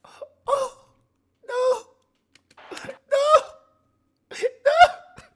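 A man's wordless excited vocal cries: about five short, high-pitched yelps and gasps, each bending up and down in pitch.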